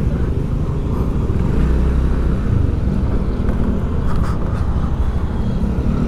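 A motor vehicle's engine running steadily while moving, with road and street traffic noise around it.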